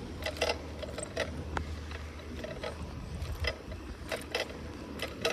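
Bicycle being ridden along a road: the bike's parts give irregular sharp mechanical clicks and rattles, about one or two a second, over a steady low rumble.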